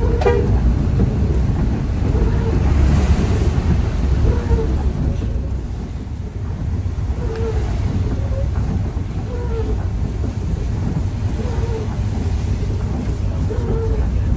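Steady low engine and road rumble of an intercity bus heard from inside the cabin while it drives on a wet road, with short faint tones every second or two.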